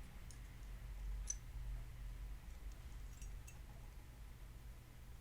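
A few faint, light clicks of small diecast model parts being handled and fitted together, over a low steady hum.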